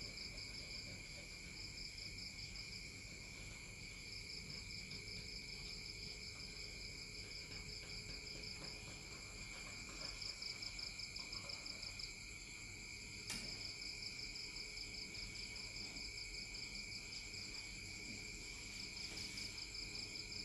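Crickets chirping in a steady, fast-pulsing trill, with one sharp click about 13 seconds in.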